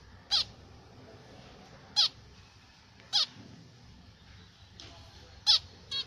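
Caged zebra finches giving five short calls at intervals of about one to two seconds, each call dropping slightly in pitch.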